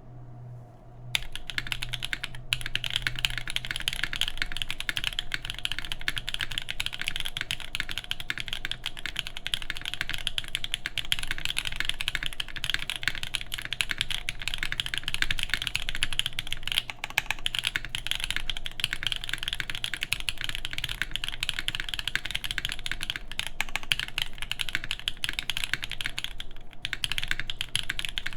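Fast continuous typing on a mechanical keyboard with lubed Black Cherry Pie linear switches, an aluminium full plate and DCX doubleshot keycaps, a dense run of keystroke clicks that starts about a second in, with brief pauses twice.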